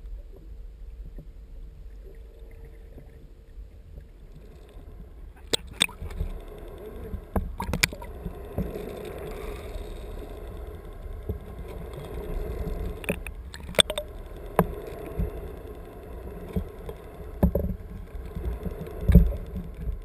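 Muffled underwater sound picked up by a GoPro Hero 2 in its housing just below the surface. A low rumble with a faint steady hum gives way, about five seconds in, to water sloshing past the housing with scattered sharp clicks and knocks.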